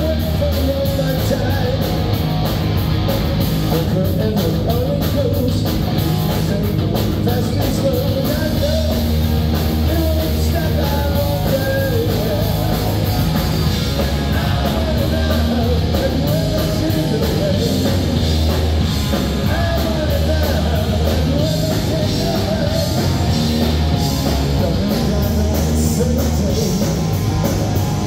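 Live punk rock band playing: electric guitars, bass and drums, with a male lead singer singing over them.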